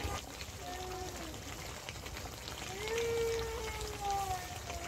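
Beef and potato curry sizzling and simmering in an aluminium pot while a metal spatula stirs and scrapes through it. Two drawn-out, voice-like calls sound over it: a short one about half a second in and a longer, louder one from about three seconds in.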